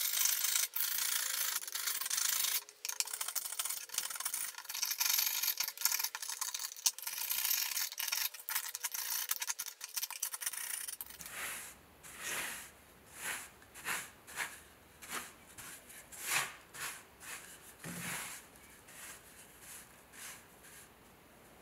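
Thick rust scraped off a steel bayonet blade with a small scraper, flakes crunching away: a dense, continuous scratching, then from about halfway through separate, softer scraping strokes roughly one a second.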